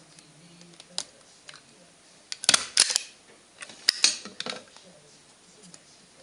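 Thin aluminium drink cans and a hand tool being handled and knocked together: a few light clicks, then two quick clusters of sharp metallic clinks and knocks about two and a half and four seconds in.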